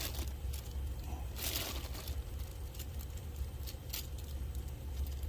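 Small parts and packaging being handled: a brief rustle about a second and a half in and a few light clicks, over a steady low rumble.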